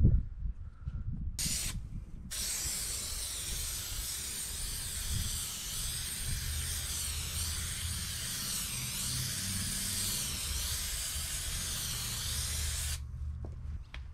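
Aerosol can of spray adhesive spraying: a short burst, then a long continuous hiss of about ten seconds that cuts off sharply near the end. A low rumble runs underneath.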